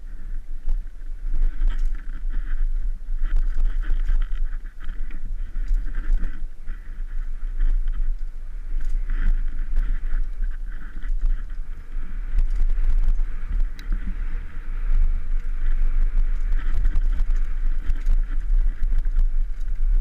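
Downhill mountain bike ridden fast over a dirt trail: a steady wind rumble on the helmet camera's microphone, with tyre noise on the dirt and frequent clicks and rattles from the bike over bumps.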